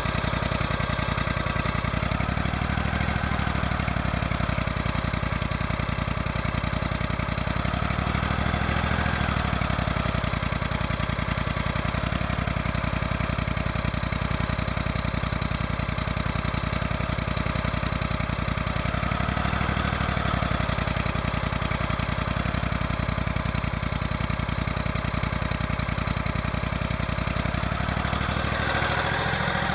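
An engine running steadily, with its sound swelling briefly every few seconds as the load or throttle changes.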